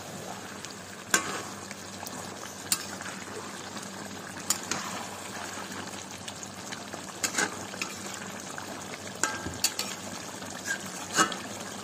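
Chicken and potato curry simmering in a kadai with a steady low bubbling hiss, while a spatula stirs it. The spatula gives occasional sharp clinks and scrapes against the metal pan.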